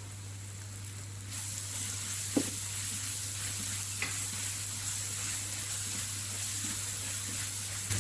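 Garlic, shallots and fermented soybean paste sizzling in hot oil while being stir-fried. The sizzle grows louder about a second in and then holds steady, with a sharp clack of the spatula against the pan a couple of seconds in.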